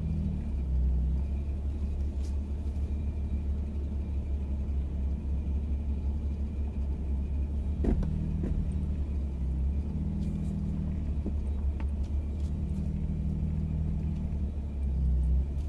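Gen 2 Ford Raptor's twin-turbo V6 running with a low, steady rumble at crawling speed, heard from inside the cab. There is one sharp knock about eight seconds in, and the sound briefly swells near the end.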